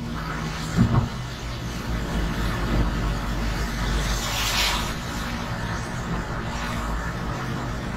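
Car cabin noise: a steady low engine and road rumble with a faint even hum, heard from inside the car, with a brief rushing swell about halfway through.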